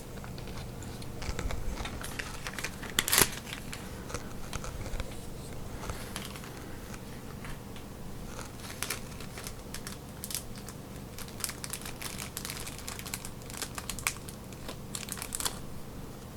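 Plastic packaging crinkling and crackling with small clicks as a replacement Apple Watch glass and digitizer is unwrapped and handled; one sharper click about three seconds in.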